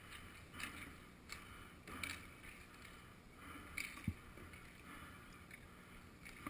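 Faint, irregular scuffs and rustles of a roller-hockey goalie's gear and inline skates close to a helmet-mounted camera, with one dull thump about four seconds in.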